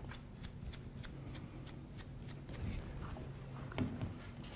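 Faint, quick taps and brushing of a chip brush dabbing very watery paint onto a latex mask, about three light ticks a second.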